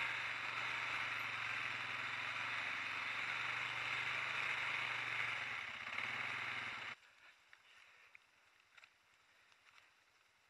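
Quad bike (ATV) engine running steadily as it drives over rough forest ground, a low hum under a broad rushing noise. The sound stops abruptly about seven seconds in, leaving near quiet with a few faint clicks.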